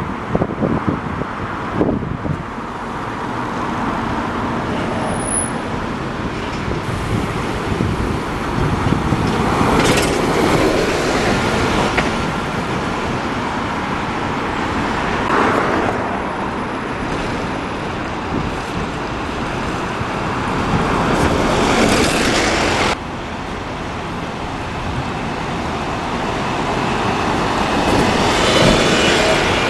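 City street traffic: buses and cars running past. The sound changes abruptly several times at edit cuts, and a double-decker bus passing close swells louder near the end.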